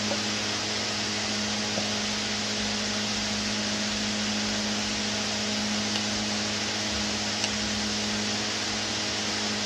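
Steady hum with an even hiss, and a few faint short ticks.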